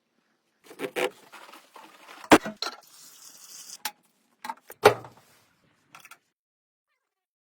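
Several sharp knocks and clatters of hard objects, two of them much louder, with a short stretch of rubbing or scraping in between.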